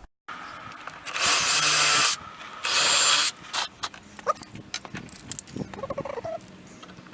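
Workshop clean-up at a saw table: two loud rushing, hissing noise bursts, the first about a second long and the second shorter, followed by scattered light knocks and clicks.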